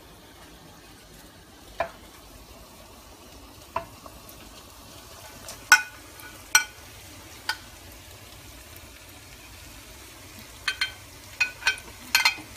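Steel ladle clinking and scraping against a glass baking dish and a non-stick pan's rim as shredded cabbage is scooped into the pan: a few sharp clinks spaced out at first, then a quick cluster near the end, over a faint steady hiss from the pan.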